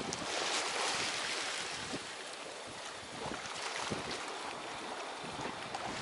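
Choppy sea waves washing and splashing just below, with wind noise on the microphone. The wash swells briefly about a second in and again near four seconds.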